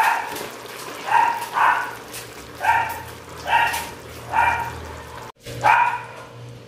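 A dog barking repeatedly, about seven short barks roughly a second apart.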